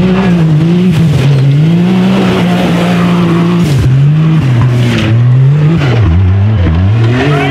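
Off-road race buggy engine revving hard under load on a hill climb. The pitch rises and falls repeatedly, with sharp throttle drops about four and six seconds in and again near the end.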